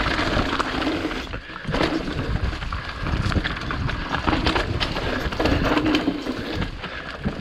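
Mountain bike rolling fast down a leaf-covered dirt trail: tyres running over dry leaves and soil, with many quick knocks and rattles from the bike over the bumps.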